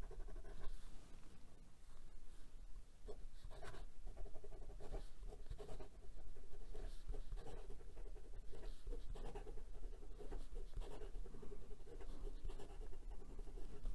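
Fountain pen with a fine 14k gold hooded nib writing quickly in cursive on lined notebook paper: a continuous run of short, irregular scratching strokes of the nib on the paper.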